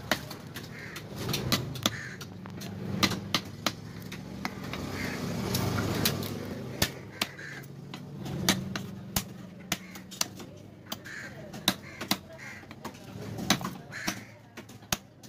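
A knife chopping fish into pieces on a wooden chopping block: irregular sharp chops, sometimes several in quick succession, each knocking on the wood.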